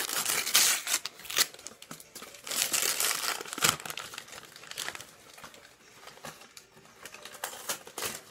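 Paper wrapping crumpling and rustling as a small gift is unwrapped, in irregular bursts that are loudest over the first few seconds and then die down to lighter rustling.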